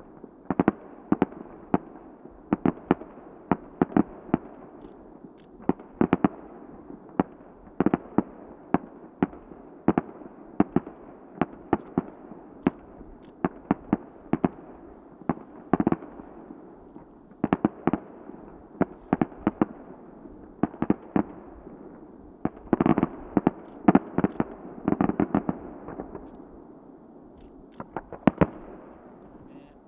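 Aerial firework shells bursting one after another, a steady run of sharp bangs with an echoing rumble between them, crowding into dense volleys about three quarters of the way through before thinning out near the end.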